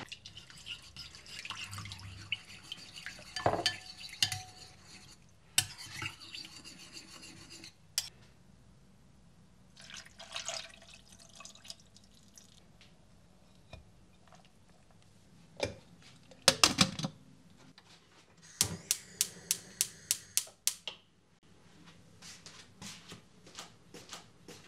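A metal spoon clinking and scraping against a ceramic bowl while tomato paste is stirred with water. Then a sauce is poured over stuffed vine leaves in a steel pot. Later come a few heavy knocks of cookware and a quick run of about ten sharp clicks, about four a second.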